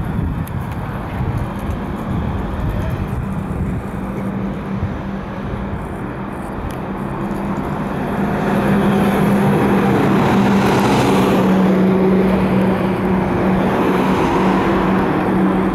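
Car engine hum and road traffic noise. A steady low engine note sits under tyre and road noise and grows louder about halfway through as a vehicle comes close.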